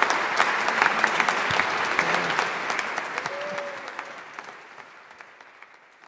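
Applause, dense clapping that fades away over the second half.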